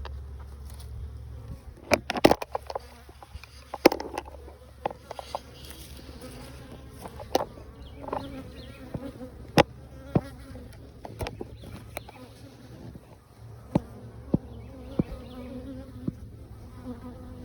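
Honeybees buzzing around an opened hive, agitated by the disturbance. Sharp clicks and knocks come at irregular intervals, the loudest of them about two to four seconds in, as hive parts are fitted together.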